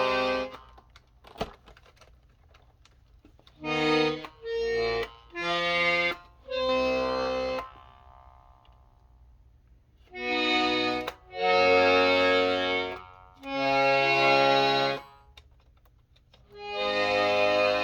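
Hohner Tango II piano accordion, its bass-side buttons pressed one after another. Each press sounds a separate short bass note or chord lasting about half a second to two seconds, with pauses between them. A short click comes about a second and a half in.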